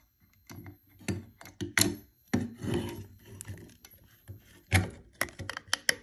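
Irregular knocks, clicks and rubbing scrapes of handling: a tool being worked in a Notifier MPS-950B fire alarm pull station to reset it, and hard objects shifted on a wooden desk.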